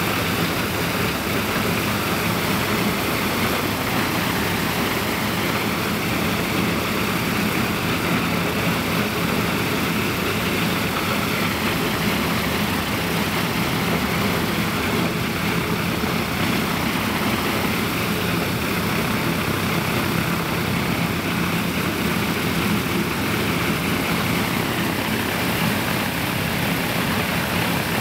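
Ilyushin Il-14T's Shvetsov ASh-82T radial piston engine turning its propeller, running steadily on its first ground run after standing idle; a continuous drone with a low hum and no change in speed.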